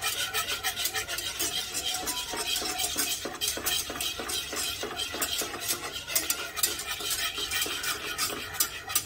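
Hand whisk beating thick yogurt in a metal pot: fast, steady strokes, several a second, scraping and clicking against the pot as the yogurt is whisked smooth of lumps.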